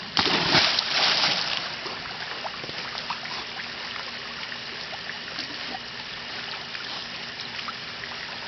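A dog splashing into a swimming pool: a loud splash right at the start, lasting about a second and a half, then the pool water lapping and trickling steadily.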